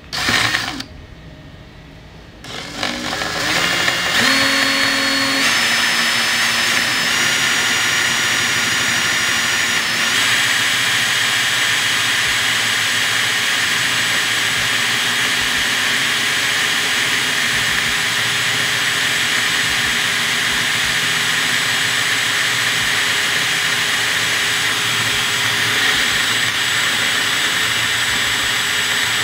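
DeWalt cordless drill boring down through a wooden board into a workbench's black tabletop. It starts about two seconds in, its pitch stepping up for several seconds as the motor spins up, then runs steadily under load.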